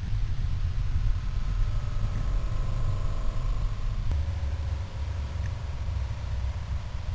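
RC model submarine's electric drive motor and propeller heard underwater as the model passes close: a faint whine of a few steady tones that starts about a second in and changes pitch about four seconds in, over a low, steady water rumble.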